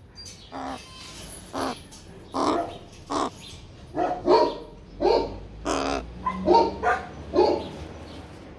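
A young crow calling: a series of short, harsh caws, roughly one a second, some coming in quick pairs.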